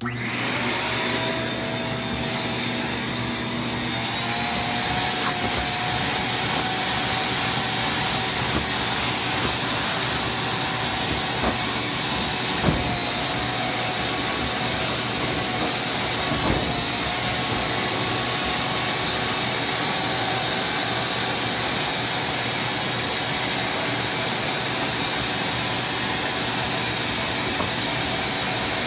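Vacuum cleaner switched on and sucking rinse water out of carpet: the motor kicks in at once, its whine climbing in pitch over the first few seconds as it spins up, then runs steadily, with a couple of brief knocks partway through.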